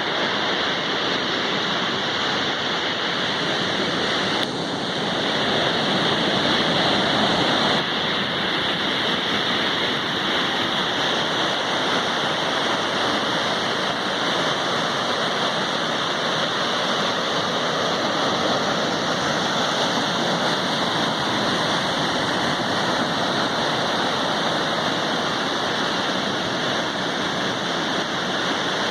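Sea surf washing steadily onto the shore, with one wave swelling louder about five seconds in.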